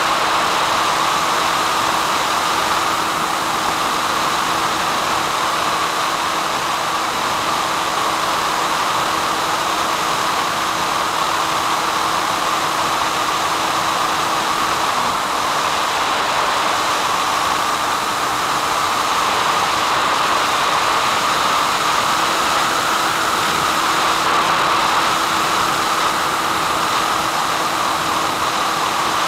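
Steady static hiss with a faint low hum on the recorded audio of the analog FPV video downlink from a SkyHunter plane, continuous throughout.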